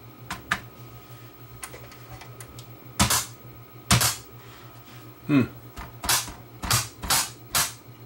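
Hands tapping and knocking on an opened Pioneer PD4300 CD player while the disc spins: about ten sharp, separate taps, the loudest around three and four seconds in, over a faint steady hum. The tapping is a check for an intermittent electrical fault that leaves the player reading the disc but silent.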